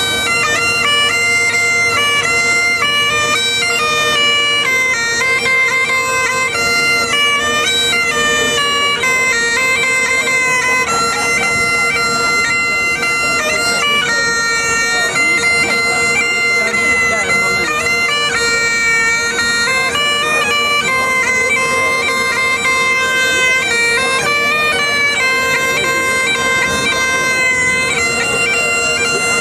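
Bagpipes played solo: a melody on the chanter over a steady, unbroken drone, the notes changing in quick steps.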